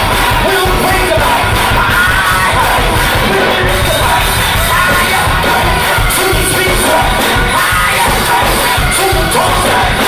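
Gospel choir singing with a band, voices over a steady drum beat, loud and continuous.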